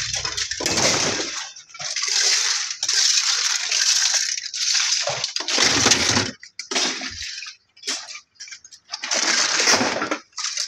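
Broken hard-plastic scrap (appliance casings and electrical fittings) clattering and rattling as the pieces are handled and dropped into a plastic tub, in several bursts with short gaps between them.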